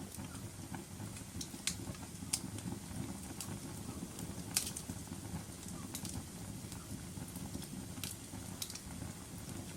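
Wood fire in a fireplace crackling: a steady low rumble of burning, with about half a dozen sharp, scattered pops and snaps.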